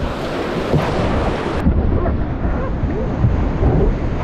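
Whitewater rapids rushing and churning around a canoe, a loud dense rush with a deep rumble from wind buffeting the microphone.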